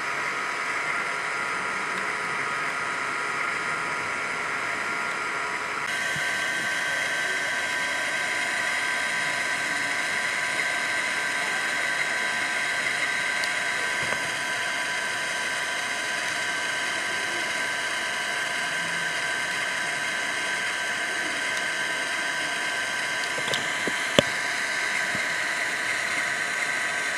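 Steady outdoor buzzing drone with several high, even tones held throughout, shifting slightly about six seconds in; a single sharp click near the end.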